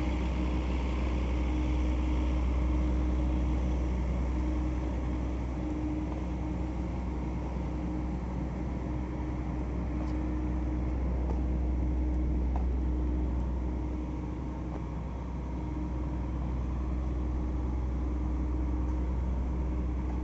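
A steady low engine-like rumble with a faint droning tone above it.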